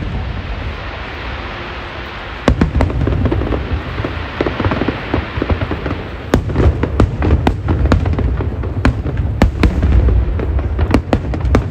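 Aerial fireworks bursting: a low rumble with crackling and hiss, then rapid sharp bangs coming thick and fast from about six seconds in.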